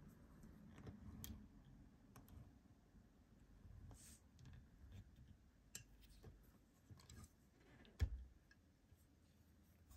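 Faint clicks and handling noises from a diecast model airliner being touched and moved by hand, with one sharper knock about eight seconds in.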